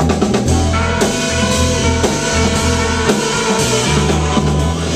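Live band playing an instrumental passage between vocal lines: baritone saxophone holding long notes over upright bass and a drum kit with cymbals.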